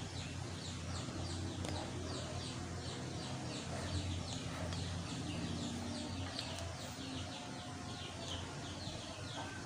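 Small birds chirping: many short, falling chirps repeat rapidly throughout, over a low steady hum.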